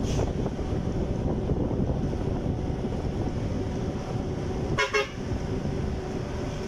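Steady low rumble of a moving road vehicle and wind, with a short horn toot about five seconds in.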